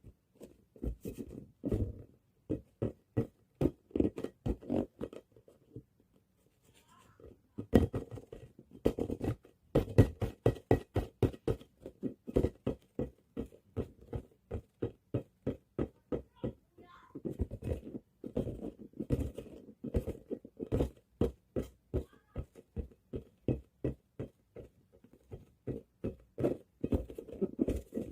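A ball bouncing again and again, a rapid run of dull thuds several times a second, with a short pause about six seconds in.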